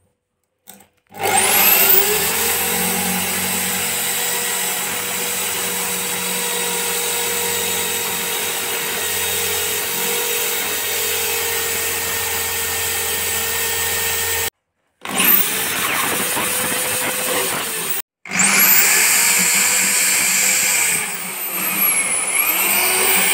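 Corded electric drill spinning up and boring a hole through the top panel of a counter drawer, with a steady motor whine. The sound cuts off abruptly twice and starts again, and near the end the motor's pitch dips and rises as the speed changes.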